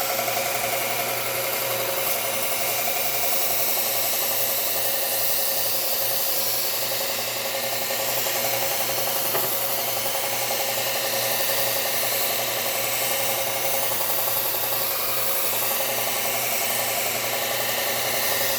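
Bucktool slow-speed belt sander with a Cubitron 120-grit belt running steadily while a lopper blade is ground against it, a continuous abrasive rasp over the motor's hum, to work out nicks in the edge.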